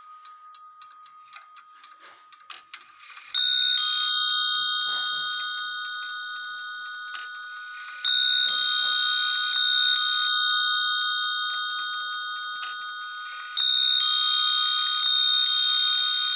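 A 1960 Swiss Neuchatel mantel clock striking on its bells. Light clicks of the striking train come first. About three seconds in, the hammers begin hitting the bells, each blow a pair of notes in quick succession left to ring and fade, repeated several times.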